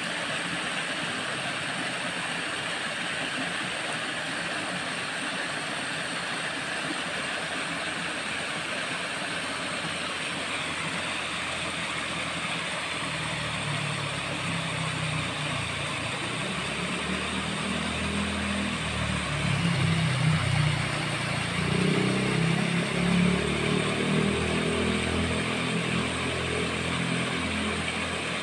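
Steady rush of water at a small cascade. About halfway through a low rumble joins it, swelling and fading several times.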